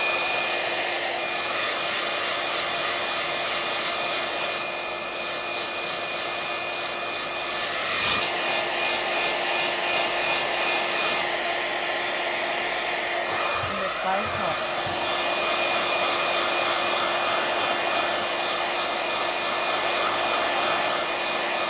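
iTeraCare handheld terahertz wand running, giving a steady hair-dryer-like whir with a constant hum and a faint high whine; a brief click about eight seconds in.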